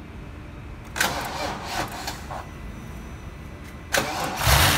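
BMW X5's M62 V8 engine being started as a test during camshaft timing work: a short burst of cranking about a second in, then near the end a louder, sudden crank as the engine catches with a low pulsing run.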